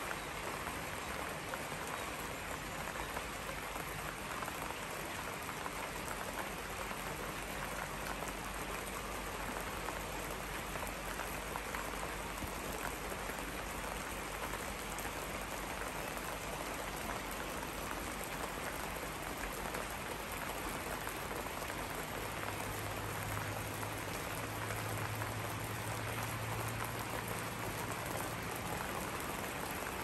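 Steady hiss of rain falling on the surface of a wide, fast-flowing river. About two-thirds of the way through, a low hum comes in under it and fades near the end.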